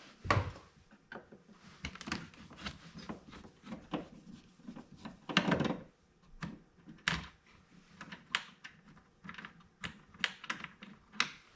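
Irregular light clicks and taps of a screwdriver on the plastic trim of a Jeep Grand Cherokee ZJ's inner door panel as its screws are found and removed, with a longer scrape about five seconds in.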